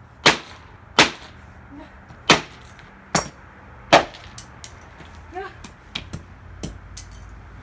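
Hammer blows smashing the plastic pieces of a Dreamsky DS206 alarm clock radio: five sharp strikes about a second apart, then a few lighter taps.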